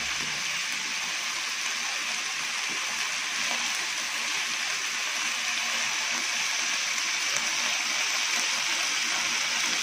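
Sliced beef, chicken, sausage and squid sizzling steadily on a hot yakiniku grill pan, an even frying hiss.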